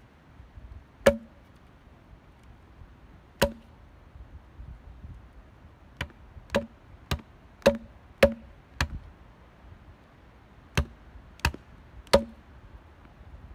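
A small hatchet chopping into an upright wooden pole: about eleven sharp, separate strikes, with a quick run of blows in the middle and pauses between the groups.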